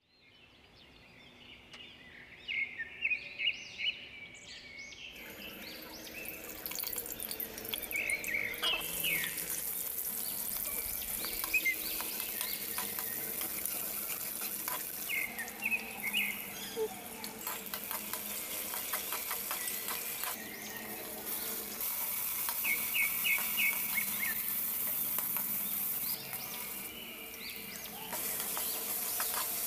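Hot oil sizzling as sliced onions and green chillies fry in a metal pot, with a steel ladle stirring and scraping. The sizzling starts about five seconds in.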